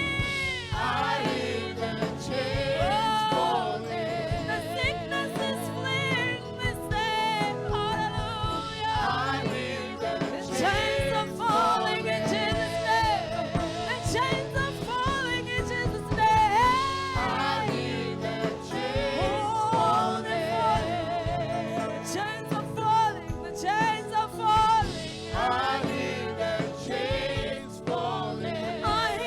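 Gospel worship singing with instrumental accompaniment, voices holding long notes with vibrato.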